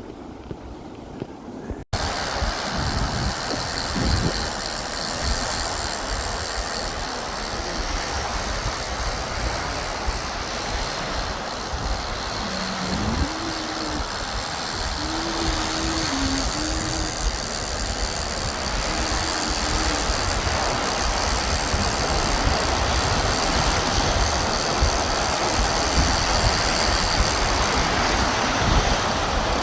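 Steady rushing wind on the microphone mixed with sea water, out on a kayak in choppy swells. It begins abruptly at a cut about two seconds in.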